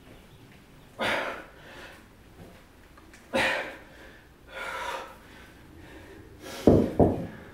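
Sharp, forceful exhalations in time with one-arm snatches of a 32 kg kettlebell, the hard breaths about two seconds apart. Near the end there are two heavy thuds close together as the kettlebell is set down on the floor.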